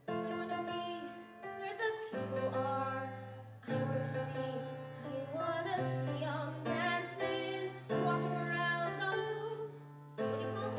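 Grand piano accompaniment playing held chords that change every second or two, with a girl singing over it.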